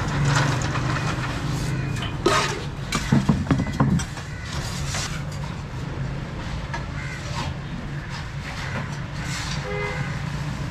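A steady low machine hum, with a run of sharp knocks and clatter between about two and four seconds in.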